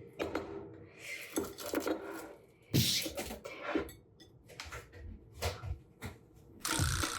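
Dishes and kitchen utensils being handled in a hurry: a run of clatters, knocks and scrapes, with a loud clash about three seconds in and another cluster near the end.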